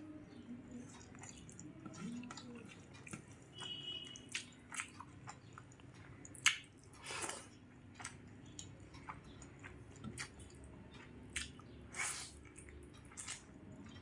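A person chewing a rice-and-curry meal close to the microphone: soft, wet mouth clicks and smacks at irregular intervals, a few of them sharper.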